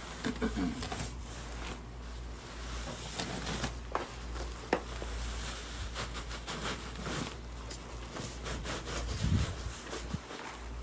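Hands digging through loose soil in a potato grow bag: irregular rustling and crumbling with scattered small knocks.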